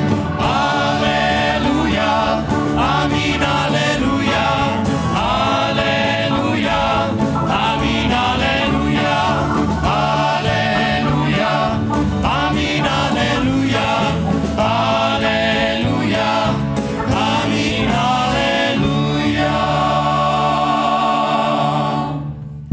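Youth choir singing a Christian worship song with a live band, the closing bars of the song. The music fades out near the end.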